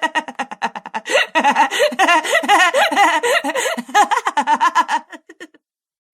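Laughter sound effect: voices laughing in quick, rapid pulses with wavering pitch, stopping abruptly about five and a half seconds in.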